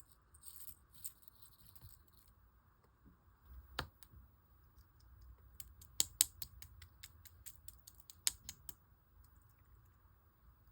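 Clear slime being handled and pressed, giving faint crackling at first, one sharp click about four seconds in, then a quick run of sharp clicks and pops.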